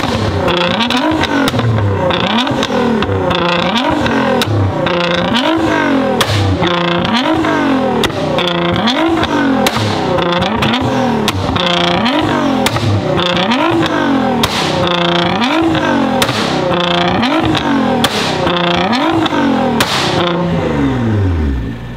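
Supercar engine revved again and again, each blip rising and falling in pitch, roughly every second and a half, with occasional sharp cracks. Near the end the revs fall away toward idle.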